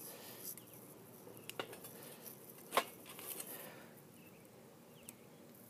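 Faint insect chirping with two light clicks, the second one louder, about a second and a half and nearly three seconds in.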